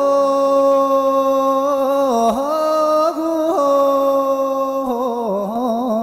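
A single unaccompanied voice singing in a chant-like style, holding long drawn-out notes. The voice steps up in pitch at the start, then breaks into wavering, ornamented turns about two seconds in and again near the end.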